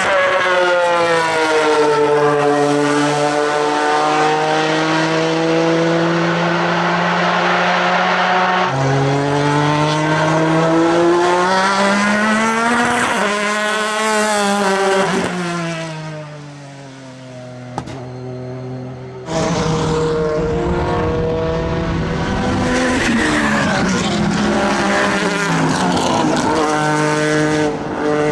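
Pilbeam MP93 LMP2 race car's JPX/Mader V6 engine at racing speed, its pitch falling and rising through gear changes. About halfway it swells as the car goes past and fades away; after a sudden cut it is loud again, revving up and down through the gears.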